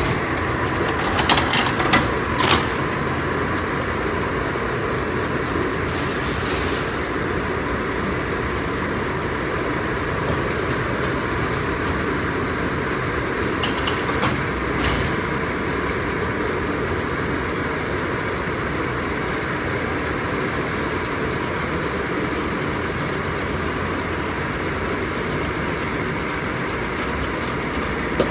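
Shopping-cart escalator running steadily as it carries a wire shopping cart, heard from inside the cart: a continuous mechanical rumble and rattle with a faint steady hum. A few clicks and knocks come a second or two in, again around halfway, and once near the end.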